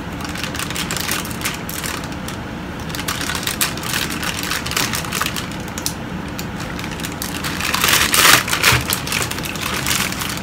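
Thin plastic packaging bags crinkling and rustling in the hands as a boxed figure's parts are unwrapped, with irregular crackles that are loudest about eight seconds in.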